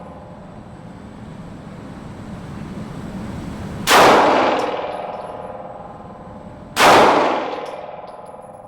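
Two handgun shots about three seconds apart, each sharp crack followed by a long echoing ring-out.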